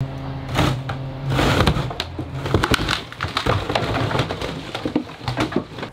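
Pigeons cooing low in the barn, with scattered crunching and clicking steps on debris.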